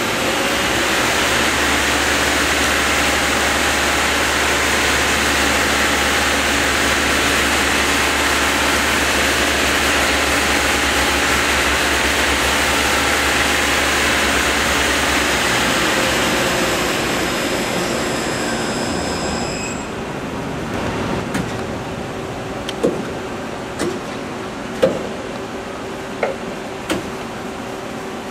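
Okuma Impact LU25 CNC lathe running its spindle with a workpiece in the chuck: a steady loud whir with a low hum and a few thin high tones. It winds down between about sixteen and twenty seconds in, and the high tones cut off. Several sharp clicks and knocks follow over fainter machine noise.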